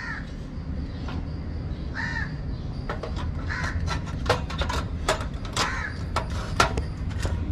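Crows cawing repeatedly, over sharp clicks and taps of a metal butane canister being seated in a portable gas stove's cartridge compartment.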